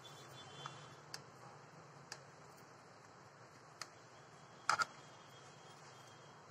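Faint scattered clicks and taps of hands working over a metal baking tin, with a sharper cluster of two or three quick clicks about four and a half seconds in, over a low steady hum.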